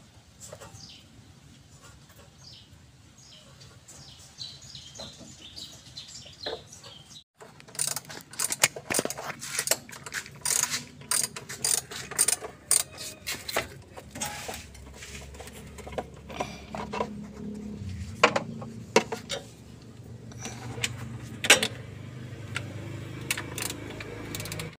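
Ratchet wrench clicking and metal tools clinking in irregular bursts while bolts are undone to take the timing belt cover off a Mitsubishi T120SS engine. The first few seconds are quieter, with faint high chirps.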